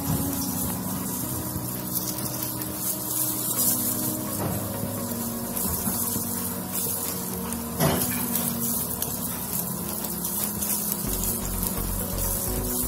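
Squid meatballs deep-frying in a wok of hot oil: a steady sizzling, bubbling hiss. Soft background music plays under it, its low beat coming in near the end, and there is a single sharp knock about eight seconds in.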